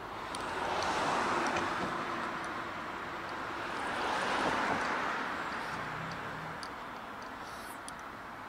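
Cars passing on a two-lane road bridge: tyre and engine noise swells about a second in, again around four seconds in, then eases to a steady hum.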